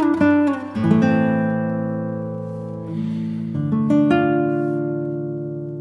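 Acoustic guitar music: a few quick plucked notes, then strummed chords about a second in and again near four seconds, each left ringing and fading.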